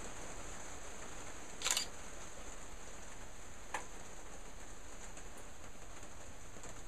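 Steady background hiss, with a short, sharp click-like noise a little under two seconds in and a fainter tick near four seconds.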